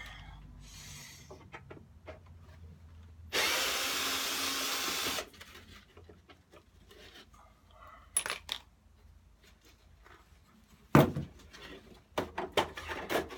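Hand work on a plastic mower cover: a loud, even rasping noise lasting about two seconds, a few light clicks later on, and a sharp knock near the end.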